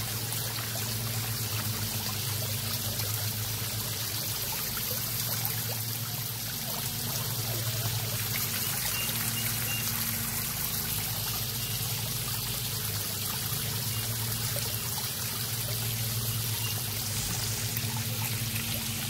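Small rock waterfall in a garden pond, water spilling and splashing steadily into the pool as a continuous trickle.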